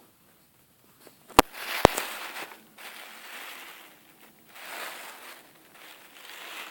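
A mailed product box being opened by hand: two sharp clicks about half a second apart, then several bursts of rustling and scraping as the packaging is pulled open.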